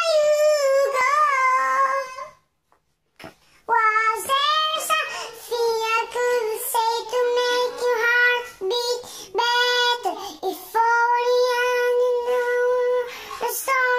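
A high-pitched voice singing wordless long held notes, some steady and some bending in pitch, with a brief pause about two and a half seconds in.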